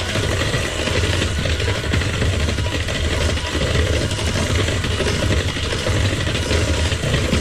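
Electric mixer motor running steadily as it beats batter.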